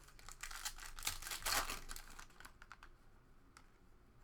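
Trading cards and their pack being handled: a run of rustles and small clicks, busiest in the first two seconds and loudest about one and a half seconds in, then a few fainter clicks.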